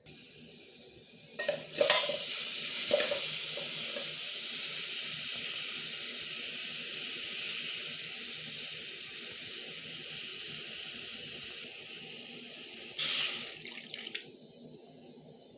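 Water running steadily for about thirteen seconds, with a few knocks as it starts. Near the end there is a brief louder gush, and then it cuts off suddenly.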